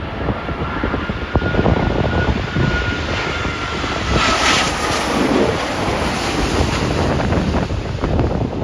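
Jet airliner passing low overhead on landing approach: its engine whine falls slowly in pitch as it goes by, with a short rush of jet noise about four and a half seconds in. Strong wind buffets the microphone throughout.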